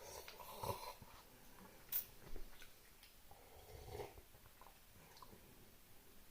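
Faint sounds of a person eating cup noodles: chewing and breathing, with a sharp click about two seconds in.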